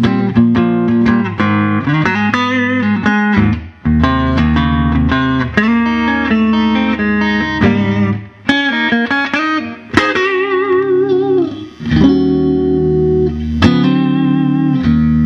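Electric guitar, a Fender Stratocaster 'Lenny' model through a Fender Vibrolux Reverb amp, playing a run of chords and single-note phrases. About ten seconds in, a held note wavers with vibrato.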